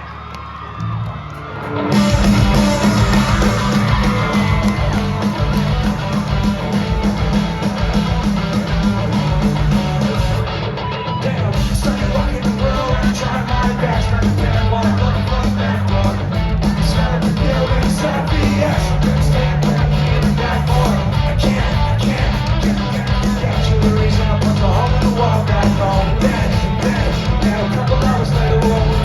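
Live rock band playing loud, with drums, bass and electric guitars, and voices singing and yelling over it, heard from the crowd. The full band comes in about two seconds in after a quieter lead-in, and there is a brief drop around ten seconds in.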